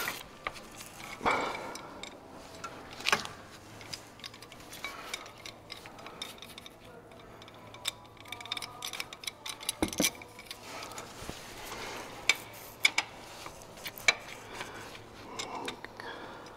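Hand ratchet clicking and metal tools clinking while the Caterpillar 3406A diesel is turned over by hand with a ratchet on a barring pinion. Irregular small clicks with a few sharper knocks.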